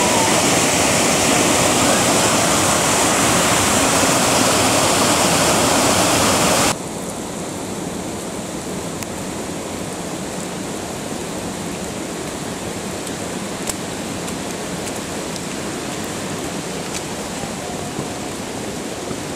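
Steady rushing of water, loud at first, then dropping suddenly to a quieter rush about seven seconds in, with a few faint ticks.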